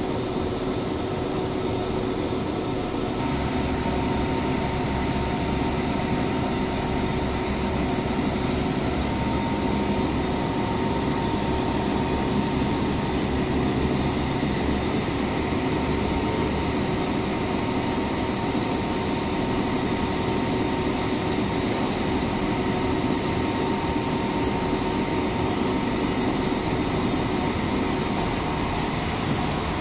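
Diesel trains idling at station platforms: a steady engine drone with a constant hum. A deeper rumble comes in about three seconds in and fades about halfway through.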